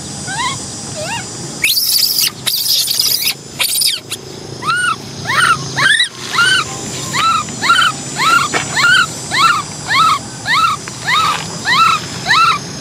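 Baby macaque crying: a long series of short, arched squealing calls, each rising then falling in pitch, about two a second, with a few noisy bursts about two seconds in.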